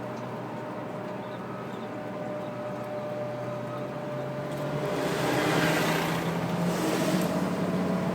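A motor vehicle's engine running with a steady hum; a louder rush of noise swells about five seconds in and eases off near the end.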